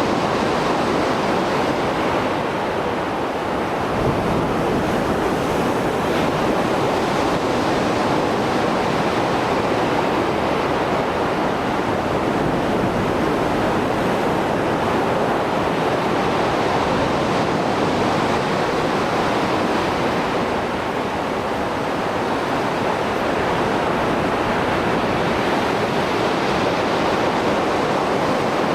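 Mediterranean surf breaking on the shore, a rough sea after a storm: a continuous rushing wash of waves that swells and eases slowly over several seconds.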